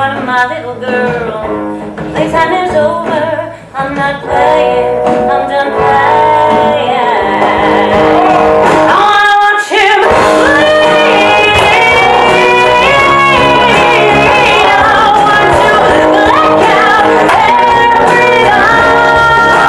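A live rock-musical number: a band playing with a singer over it, heard from the audience in a large hall. The music builds and becomes louder and fuller about six seconds in, cuts out for a moment just before ten seconds, then carries on with long held sung notes.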